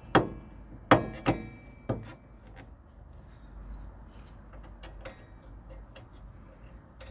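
Metal clinks and knocks of tools and bolts being handled under the van's front suspension: four sharp knocks with a brief ring in the first two seconds, then lighter ticks and clicks.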